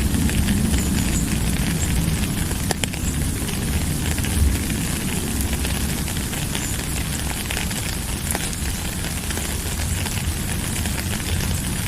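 Steady rain: an even hiss with scattered sharp ticks of single drops over a low rumble.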